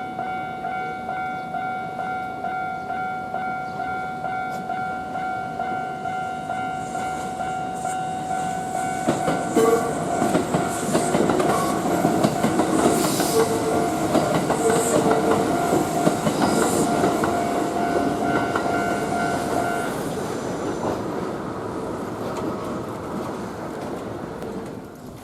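Japanese level-crossing warning bell dinging steadily, about twice a second, while a Kintetsu electric train passes over the crossing, its wheels clacking over the rail joints. The bell stops about 20 seconds in and the train noise fades away.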